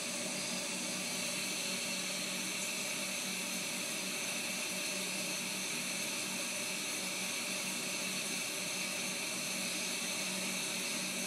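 A steady, unchanging hiss with a faint low hum under it, like a fan or other machine running.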